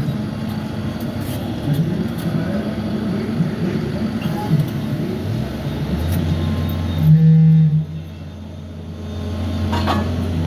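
Diesel engine of a skid steer loader running through a demonstration, with a steady low hum and a brief louder low tone about seven seconds in.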